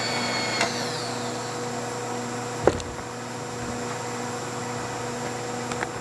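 Victor 9×49 knee mill with an inverter-driven variable-speed spindle running: a steady hum with a high electronic whine. About half a second in, a higher whine glides down and fades. There is a sharp clunk near the middle and small clicks near the end.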